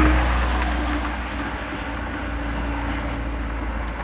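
Road traffic: a passing vehicle, loudest at the start and fading within about a second, over a steady low rumble.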